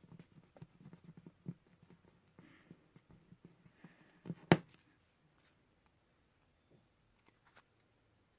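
Light paper rustling and small taps from handling, with one sharp knock about four and a half seconds in; after that only a few faint ticks.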